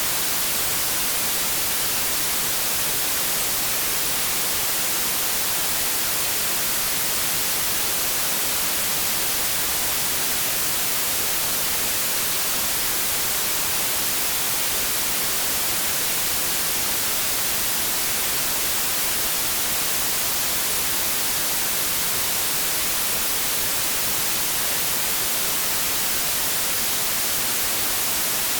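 Steady electronic white noise: an even static hiss, strongest in the high end, with no change in level or character.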